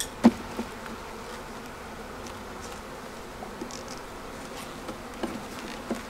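Honeybees buzzing steadily around an open hive, a hum disturbed by the inspection. A sharp knock of the hive tool and wooden frames about a quarter second in, with a few lighter wooden knocks later.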